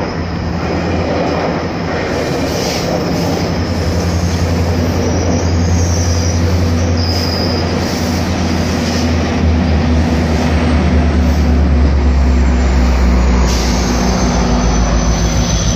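GO Transit bi-level commuter train rolling past close by, with the steady low drone of its diesel engine, which drops lower about two-thirds of the way through, and a faint high wheel squeal at times.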